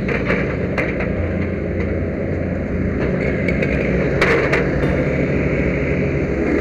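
Fire truck's diesel engine running steadily, a low even rumble, with a few short clanks and a brief hiss about four seconds in.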